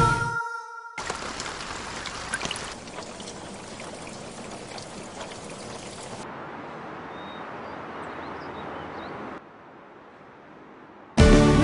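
The music cuts off and a steady rushing noise follows, thinning out about six seconds in and dropping to a fainter hiss about nine seconds in. The song returns near the end.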